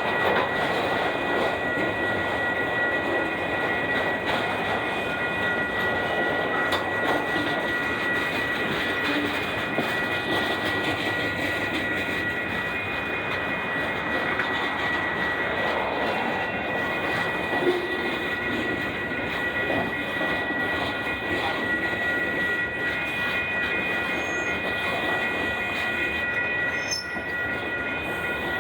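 Freight train cars rolling past: a steady, continuous noise of wheels on rail with a steady high-pitched ring on top.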